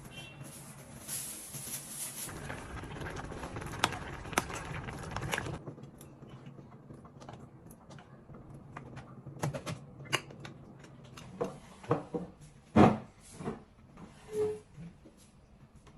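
Household handling noises. For the first five seconds or so there is rustling with clicks, then scattered clicks and knocks follow; the loudest knock comes about thirteen seconds in, with a brief tone just after.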